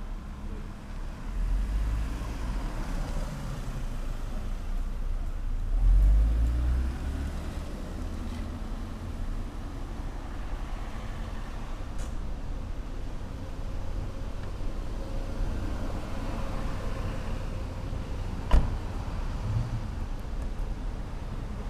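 Road vehicles passing by, with two deep low rumbles in the first third and a single sharp click a few seconds before the end.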